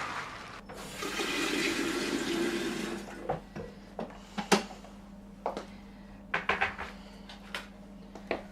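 A rush of running water lasting about two seconds, followed by a steady low hum and scattered light knocks and clicks.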